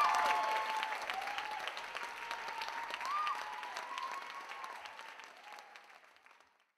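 Audience applauding, the clapping dying away and fading to silence near the end.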